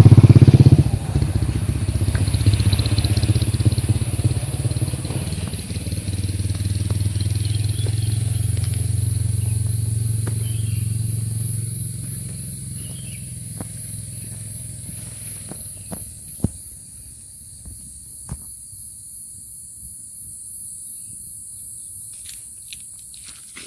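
Motorcycle engine running, loud at first and fading away over about twelve seconds. A steady high insect drone carries on throughout, with a few faint clicks near the end.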